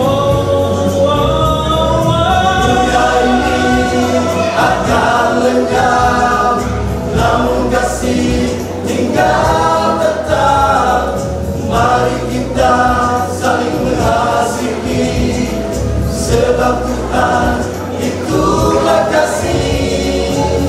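Choir singing a Christian song in parts, in long held notes over a steady low accompaniment.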